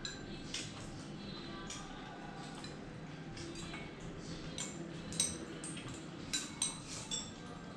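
Chopsticks and spoons clinking against ceramic rice bowls and plates at a dinner table: a scatter of light clicks and clinks, with a few sharper ones in the second half.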